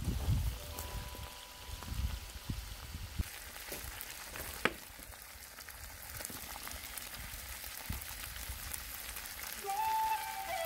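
Diced meat sizzling and crackling in hot oil in a wok, a steady spitting hiss. A few low knocks near the start and one sharp click about halfway through.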